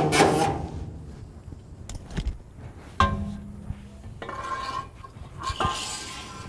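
A power tool cutting metal stops just as the sound begins, followed by scattered metal clinks and knocks, with one sharp knock about three seconds in.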